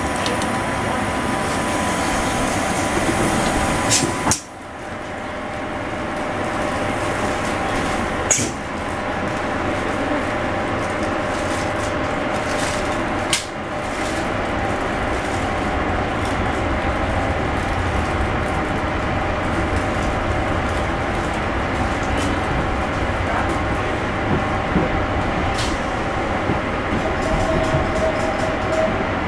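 Interior noise of a CAF articulated electric train: a steady hum and rolling noise in the passenger car, with three sharp knocks in the first half.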